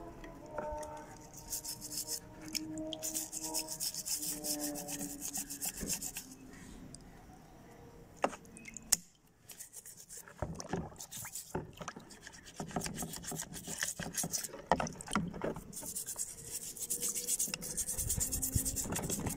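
Toothbrush bristles scrubbing a rusty, mud-caked revolver under water in a vinegar and baking-soda solution: quick, scratchy rubbing strokes to loosen rust and dirt, easing off briefly around nine seconds in. A couple of sharp knocks come just before that pause.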